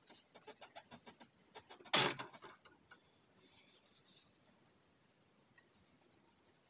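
Cloth rubbing along a burned ash axe handle in short strokes, with one sharp knock about two seconds in.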